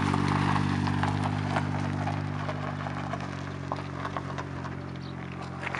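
Nissan Skyline R32's engine idling steadily, with scattered light ticks and clicks over it: the owner is tracking down an abnormal noise from the car.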